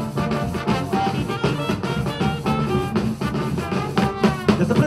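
Live Colombian fandango played by a small band of trumpet, trombone and saxophone over hand drums and a bass drum, with the drums keeping a steady beat.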